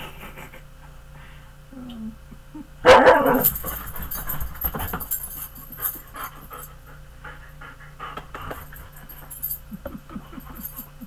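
Husky-type dog gives one loud, falling vocal call about three seconds in, then pants and moves about.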